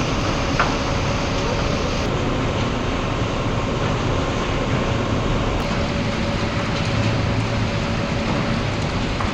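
Heavy crane machinery running steadily: a constant loud engine drone with a faint steady whine over it, and a single short click about half a second in.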